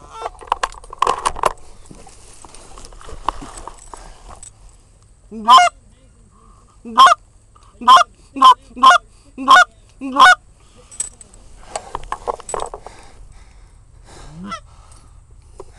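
Goose honking: a run of seven loud, short honks between about five and ten seconds in, with rustling in the first second and a half.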